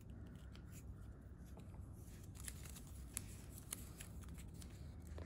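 Soft rustling of paper washi tape being pulled off its roll and handled over a planner page, with a few faint light clicks in the middle.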